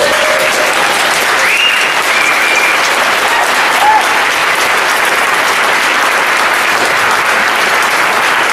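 Audience applauding steadily after a eulogy, with a few short high whistles in the first few seconds.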